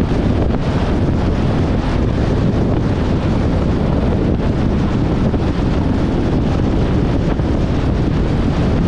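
Wind buffeting the microphone: a loud, steady rumbling rush with no let-up.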